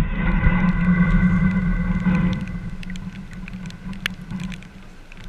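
A sharp knock, then a steady low hum with fainter higher tones for about two and a half seconds that fades away; after that, scattered light taps of raindrops on the camera housing.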